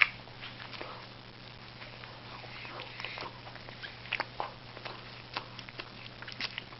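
A person chewing a mouthful of hamburger: scattered short mouth clicks and smacks, some coming in quick clusters.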